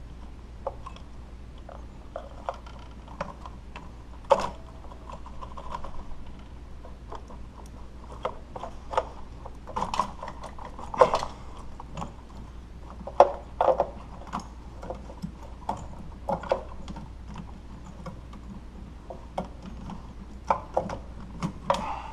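Irregular clicks, clunks and rattles of plastic and metal parts being handled as the fuel rail and injectors on a GM 3800 V6 are worked loose from the intake, over a low steady hum.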